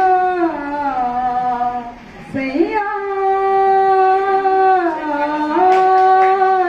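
A woman singing solo and unaccompanied, holding long notes that slide down from one pitch to the next, with a short break for breath about two seconds in.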